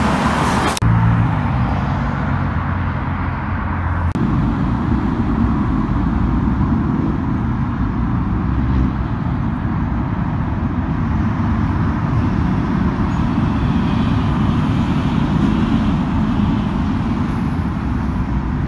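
Steady rumble of road traffic on a busy main road, with a vehicle engine's low drone standing out for the first few seconds.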